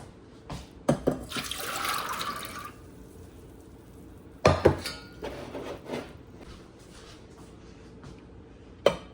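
Water running from a kitchen tap for about a second, then a pot and dishes clanking several times, one sharp knock loudest about halfway through.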